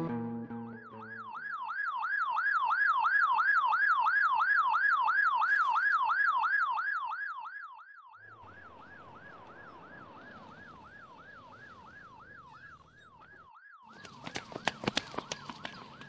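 Police siren in a fast yelp, sweeping up and down about three times a second. It swells in over the first couple of seconds, drops to a lower level about eight seconds in and keeps going, with a quick run of knocks about fourteen seconds in.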